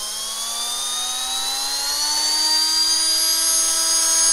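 Small 3D-printed three-phase permanent-magnet electric motor revving up: an electric whine that rises smoothly in pitch and gets a little louder, levelling off at a steady higher speed about three seconds in.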